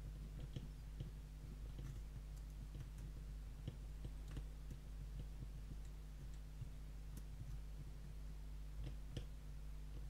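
Faint, irregular clicking and scraping of a steel pick rake being rocked back and forth against the pins of a dimple-keyway padlock under very light tension, over a steady low hum.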